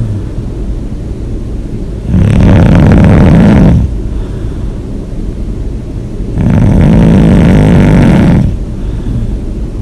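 A person snoring loudly: two long snores about four seconds apart, each lasting about two seconds, with quieter breathing between them.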